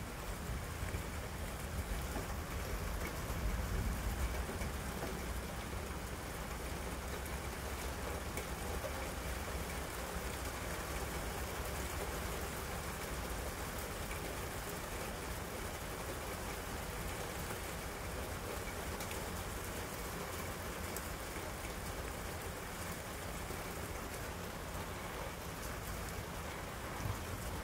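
Steady rain falling in a thunderstorm, an even continuous hiss, with a low rumble in the first few seconds.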